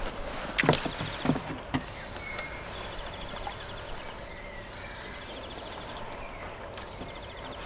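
Quiet creek-bank ambience: a few sharp knocks and rustles in the reeds during the first two seconds, then a steady faint hiss with a rapid, high ticking trill that comes twice.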